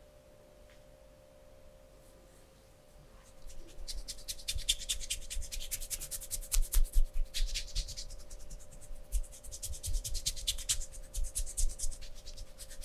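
Rapid scratching and rubbing close to the microphone, many quick strokes in two long runs starting a few seconds in, over a faint steady hum.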